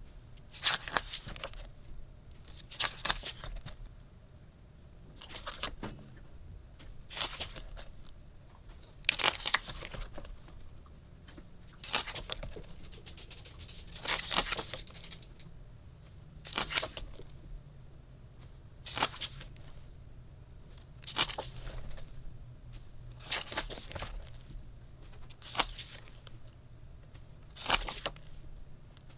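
Pages of a thick hardcover photobook being turned by hand, one brief papery swish about every two seconds.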